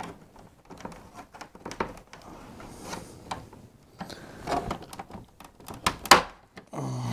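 Screwdriver prying at the plastic back cover of a Hitachi LCD TV: scattered plastic clicks and scrapes, with a sharper click about six seconds in.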